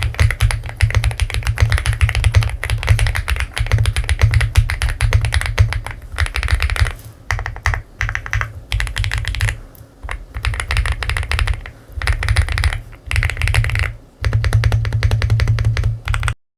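Typing on an Attack Shark X75 all-aluminium mechanical keyboard in its stock configuration: fast runs of key strikes in bursts with short pauses between them, cutting off suddenly near the end.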